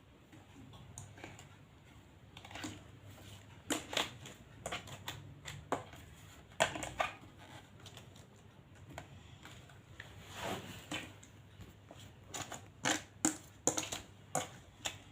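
Irregular clicks, taps and scraping rustles of small plastic toy parts and packaging being handled, with a few sharper clicks.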